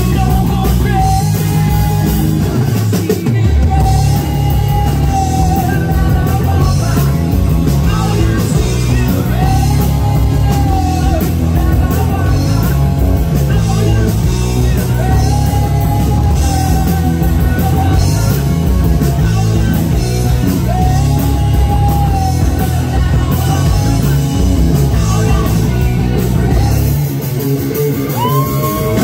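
Live rock band playing loud: drum kit, electric guitars and bass, with a singer's voice over the top. Near the end the low end drops back and a high held note comes in.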